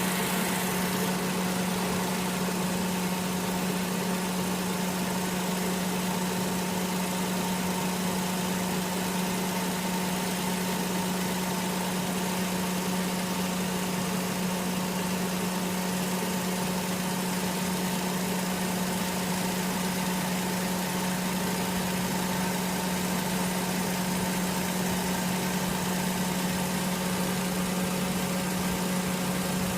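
Car engine idling with its air-conditioning compressor running: a steady hum with one strong low tone that holds unchanged.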